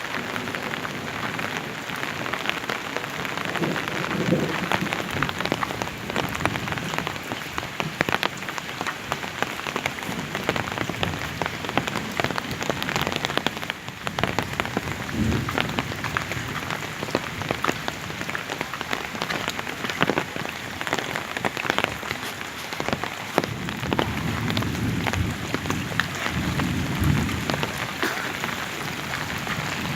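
Heavy rain falling steadily, with many close drops striking a hard surface. A few brief low rumbles sound through it.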